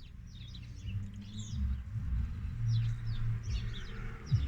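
Small birds chirping and twittering, many short quick calls, over a low rumble.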